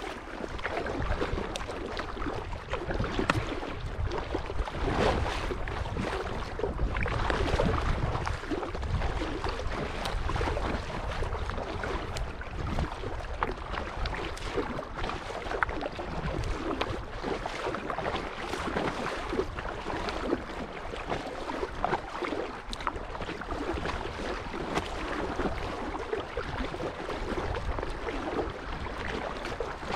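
Water lapping and splashing against a moving kayak's hull on a choppy lake, with wind rumbling on the microphone.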